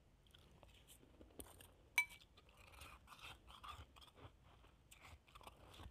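Close-miked chewing of shaved ice: quiet, irregular crunching and crackling in the mouth, with one sharp click about two seconds in.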